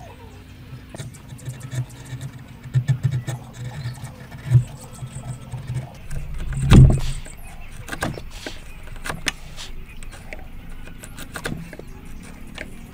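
Hand woodworking with chisels on wood: scattered taps, clicks and knocks of tools and timber, with one heavy thump about seven seconds in, over a low hum in the first half.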